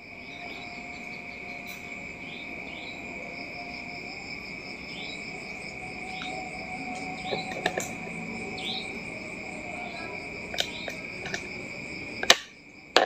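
Cricket trilling steadily at one high pitch, with short chirps over it every second or two. A few sharp clicks come in the second half, the loudest about a second before the end.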